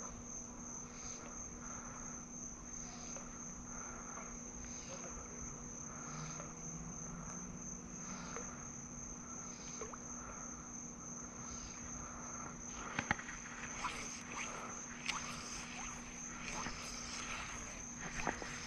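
An evening insect chorus, crickets giving a steady high-pitched trill, over a slower call repeating about once a second and a low steady hum. From about two-thirds of the way in come scattered clicks and rustles of handling.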